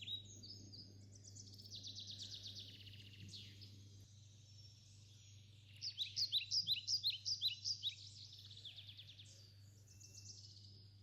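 Birds singing: rapid trilled phrases, then from about six seconds in a quick run of short high chirps, about four a second, with a faint steady low hum underneath.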